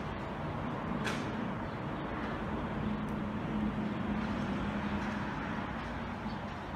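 Steady background rumble and hiss with a low hum, and one sharp click about a second in.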